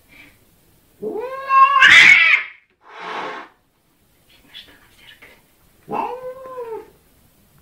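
Cat yowling at its own reflection in a mirror: a drawn-out, rising yowl that turns harsh at its loudest, a short hiss, and then a second arched yowl near the end. These are threat calls.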